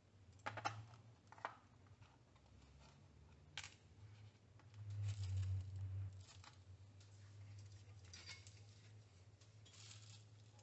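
Faint, light clicks and scrapes of small hand tools working a diode out of a circuit board, over a steady low electrical hum that swells briefly about halfway through.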